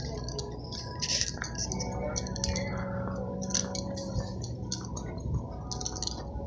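Handling noise from a phone carried in the hand while walking: irregular rubs and clicks, over a steady low hum and a faint steady tone.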